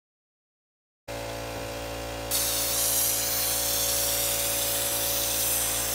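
Silence for about a second, then a steady hum; about two seconds in, a compressed-air spray gun starts hissing steadily as it sprays Raptor truck bed liner.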